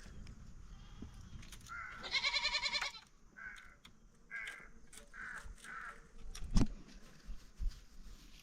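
A goat bleating once with a strong quaver, about two seconds in and lasting about a second, followed by four short, fainter calls. A sharp knock follows near the end.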